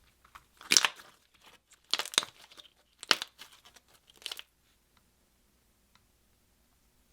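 Slime being squeezed and stretched by hand, crackling and popping in four short bursts over the first four and a half seconds, the last one fainter.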